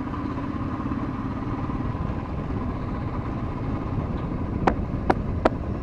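Motorcycle engine running steadily while riding along. Near the end, four sharp clicks come about half a second apart.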